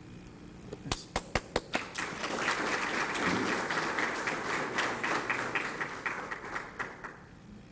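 Audience applauding: a few lone claps at first, swelling into steady applause that thins out to scattered claps and dies away near the end.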